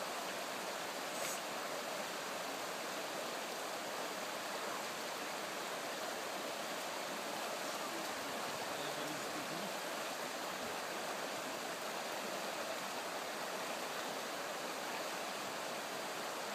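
Shallow river flowing steadily over a stony bed, an even rushing of water.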